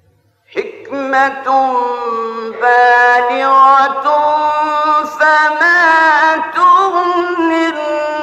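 A male Quran reciter chanting in the melodic Egyptian mujawwad style, one long ornamented phrase with drawn-out notes and winding pitch turns. It enters sharply about half a second in and carries on almost unbroken.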